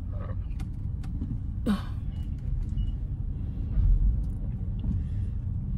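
Steady low rumble of a car heard from inside the cabin while it is being manoeuvred into a parking spot, with a few faint clicks and a brief louder rumble about four seconds in.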